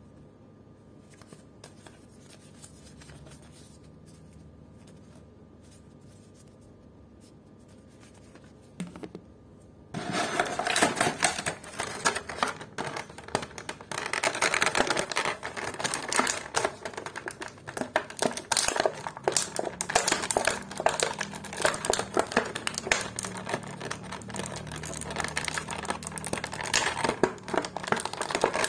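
Clear plastic packaging (a thin blister tray and plastic bag) crinkling and crackling in a dense run of small clicks as it is handled and the action figure is worked out of it. It starts suddenly about a third of the way in, after faint handling of the figure's soft plastic cape.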